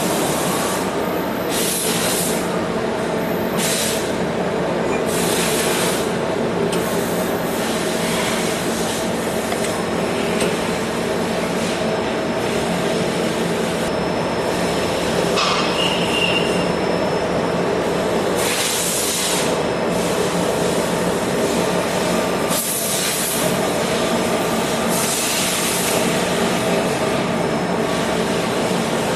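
Lathe running: a steady mechanical hum with several even tones, broken every few seconds by short bursts of high hiss.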